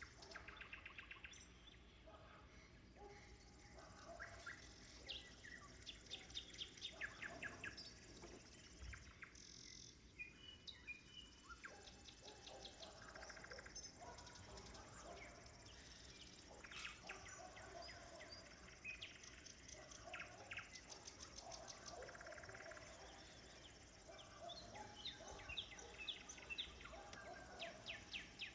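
Faint nightingale song: phrase after phrase of fast repeated notes and trills, with short gaps between them.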